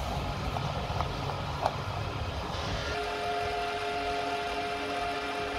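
Fuel-station diesel dispenser pump switching on about three seconds in and running with a steady hum, after a couple of clicks from the fuel cap and nozzle being handled. A low rumble sits underneath at the start.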